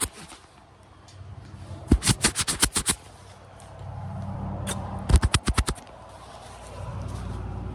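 Handling noise on the recording microphone as the phone and mic are adjusted: two quick rattling runs of knocks and crackles, about two seconds in and again about five seconds in, over a low rumble.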